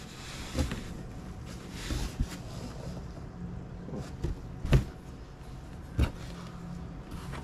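Jacket fabric being handled and unfolded: cloth rustling, broken by about five soft knocks, the loudest a little past halfway.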